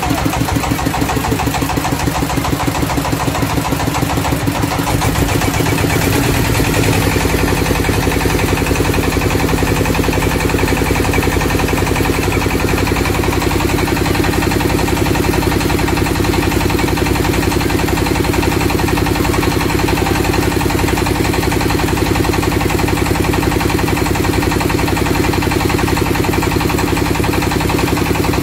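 A small passenger boat's engine running, picking up speed about six seconds in and then holding a steady pace.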